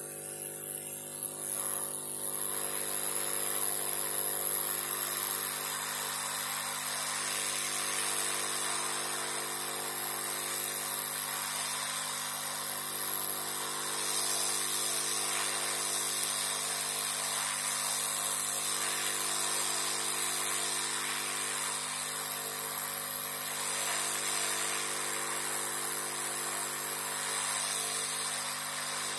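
Hot-air rework gun blowing steadily: an even hiss of air over a low motor hum, reflowing solder to fix a replacement MOSFET onto the motherboard's VRM.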